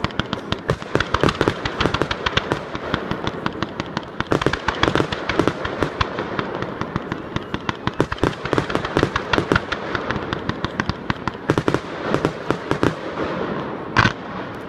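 Large fireworks display: a dense, unbroken run of sharp pops and cracks, several every second, with a louder bang near the end.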